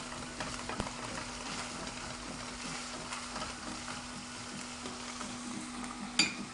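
Flaked canned tuna frying and sizzling in olive oil in a non-stick pan as it browns, stirred and scraped with a wooden spatula, over a steady low hum. A short sharp knock near the end.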